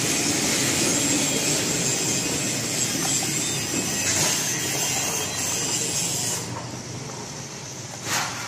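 Toy tractor pulling two metal trolleys over the ground, a steady rattling rumble from its running gear and wheels. It grows quieter about six seconds in, and there is a short louder burst near the end.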